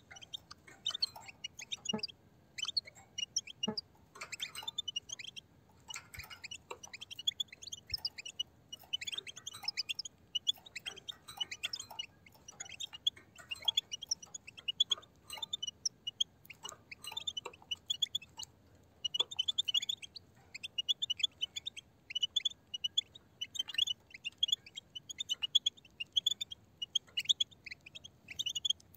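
A flock of European goldfinches giving their twittering flock chatter in quick bursts of high chirps, with sharp clicks of beaks pecking and cracking seed on the ground, most of them in the first half.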